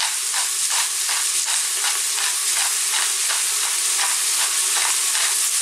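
Chopped onion, garlic, ginger and whole spices sizzling in hot oil in a stainless steel pressure cooker pot over a fairly lively heat, with a steady crackle of many small pops.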